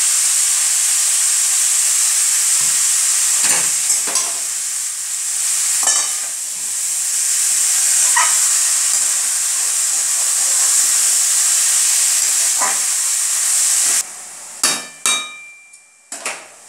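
Sliced bottle gourd sizzling in oil in an aluminium kadai, with a metal spatula scraping and clattering against the pan now and then as it is stirred. The sizzle cuts off suddenly about 14 seconds in, and a few knocks follow.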